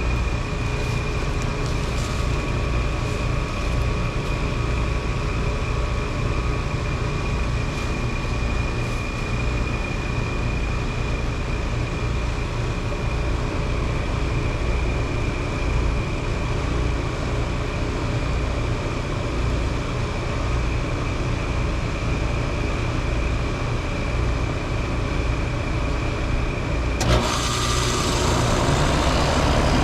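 A 2010s Rheem Classic heat pump's outdoor unit runs with a steady compressor hum and a constant high whine. About 27 seconds in, a sudden loud rushing hiss starts and keeps going: refrigerant whooshing as the reversing valve shifts over for defrost.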